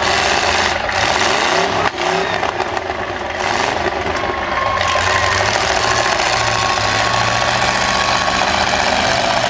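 Several demolition derby cars' V8 engines running and revving together in a loud, continuous din.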